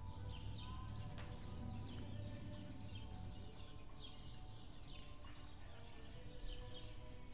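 Small birds chirping, a string of short quick falling chirps, over a steady low rumble.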